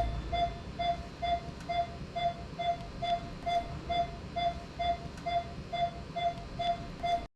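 Anaesthesia patient monitor beeping steadily with each heartbeat, about two and a half short beeps a second, then cutting off suddenly near the end.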